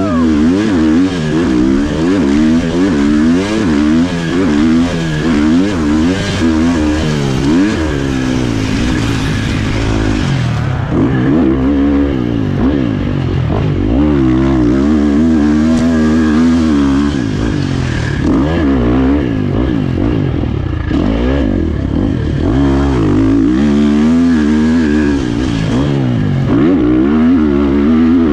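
Husqvarna FC 350 single-cylinder four-stroke dirt bike engine revving hard and easing off over and over, its pitch climbing and dropping every second or two as the rider accelerates, shifts and rolls off.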